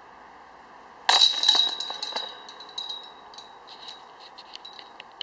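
Metal chains of a disc golf basket struck by a disc about a second in, then jingling and rattling as they settle, fading away over a few seconds.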